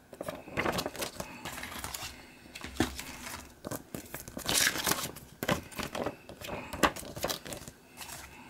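Paper inserts rustling and crinkling while a plastic DVD case is handled and opened, with irregular sharp clicks; the loudest rustle comes about four and a half seconds in.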